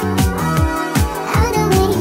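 Sped-up pop song: synth chords over a steady beat of deep kick drums that slide down in pitch, about three a second.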